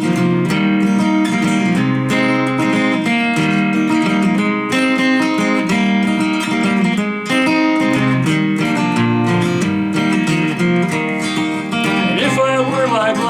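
Acoustic guitar strummed and picked at a steady pace, an instrumental break between verses of a country song.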